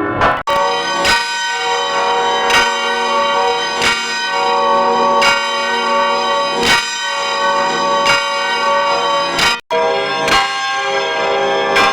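Church bells ringing, struck about once every one and a half seconds, each stroke leaving a long ring of overtones. The sound cuts off abruptly twice, about half a second in and near the ten-second mark, where one recording is spliced to the next.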